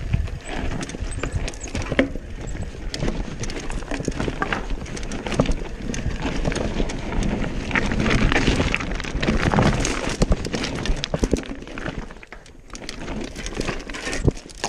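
Commencal Meta AM V4 mountain bike riding over a rocky trail: tyres crunching and clattering over loose stones, with the bike rattling on every hit. The clatter eases briefly near the end.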